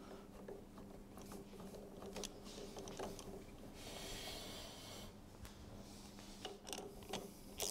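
Ratchet wrench clicking faintly as the nuts and bolts on the inner driveshaft flange are run down, over a low steady hum.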